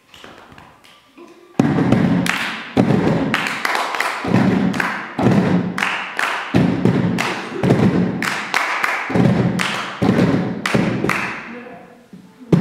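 Hand percussion on upturned plastic storage boxes, mixed with hand claps, played as a rhythmic ensemble beat by several players. It starts loud about a second and a half in and stops shortly before the end.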